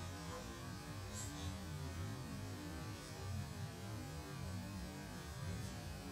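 Faint steady low hum with a light hiss, with no distinct event.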